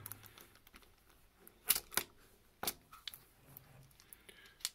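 Light clicks and knocks of a plastic Vex omni wheel being picked up and handled on a tabletop, with a few sharper clicks in the middle and one near the end.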